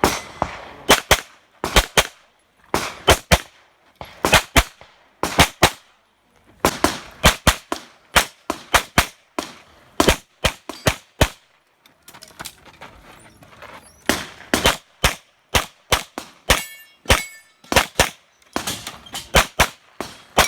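Rapid handgun fire during an IPSC stage run: shots come mostly in quick pairs, in strings broken by short pauses. A brief metallic ring sounds about two-thirds of the way in.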